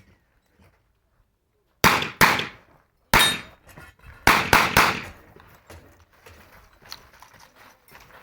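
Revolver fired six times in two quick groups at steel targets, one hit leaving a short metallic ring, followed by quieter rattling and clatter.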